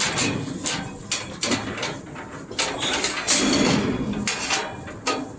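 Irregular clanking and rattling of steel livestock gates and a stock trailer as calves are loaded, a run of sharp metal knocks at uneven spacing.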